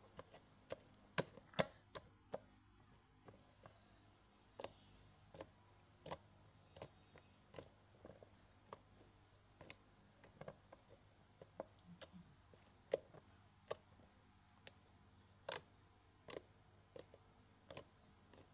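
Homemade pink slime being squeezed, poked and folded by hand, giving off sharp, irregular clicks and pops, about one or two a second, some much louder than others.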